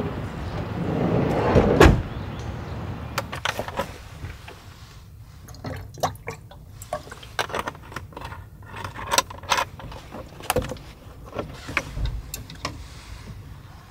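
A sliding door rolls shut and closes with a heavy thud about two seconds in, followed by a string of scattered light clicks and knocks of things being handled.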